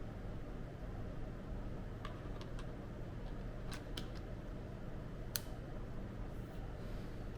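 A few light, sharp clicks and taps from handling small camera gear, spaced irregularly with the loudest about five seconds in, over a steady low hum.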